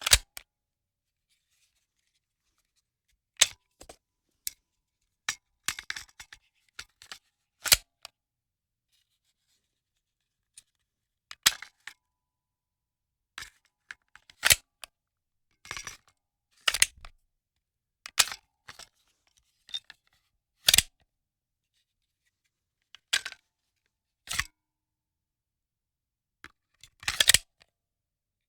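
Handgun magazine being loaded: a string of sharp metallic clicks and clacks, some single and some in short rattling clusters, with gaps of silence of a second or more between them.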